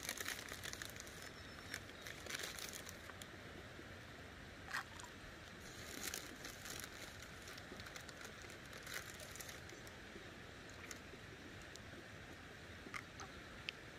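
Faint outdoor background at a pond's edge, broken by scattered light clicks and rustling crackles.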